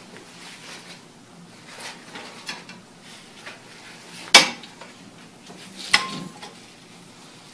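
Metal clanks from a wheelchair being sat in and handled: two sharp knocks about a second and a half apart, the second ringing briefly, over soft rustling of movement.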